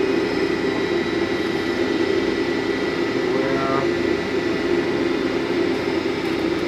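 Brown & Sharpe No. 2 universal cylindrical grinder running, its wheel spindle and hydraulic drive giving a steady hum with a thin high whine above it.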